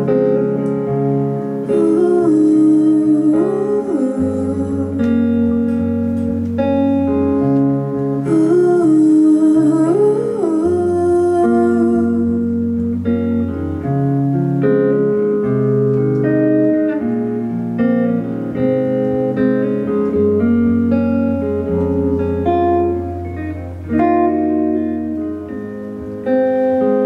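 Live acoustic pop band playing an instrumental break with guitar, keyboard and bass under a sliding, wordless melody line.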